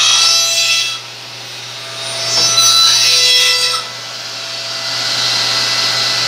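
Three-axis CNC mill taking heavy face cuts in billet aluminium with a shell mill under flood coolant: a steady machine whine with rough cutting noise that comes in surges as the cutter passes across the part, first about a second long, then from about two seconds to nearly four, then building again near the end.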